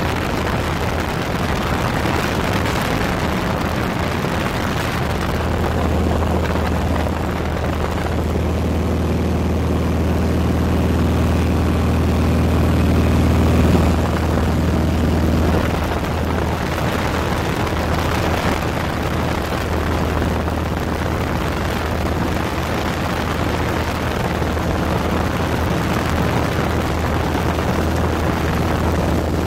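Steady drone of a light aircraft's engine and propeller heard from inside the cabin. The low hum grows stronger for a while around the middle.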